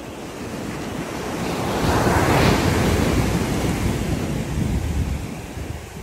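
Ocean surf breaking on a sandy beach: a wave's wash swells to its loudest about two seconds in and then slowly fades. Wind rumbles on the microphone.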